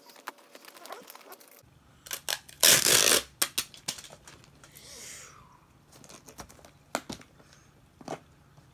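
Paper and cardboard being handled: a sheet rustling and crinkling, with light taps and clicks, and a short, loud rush of noise about three seconds in.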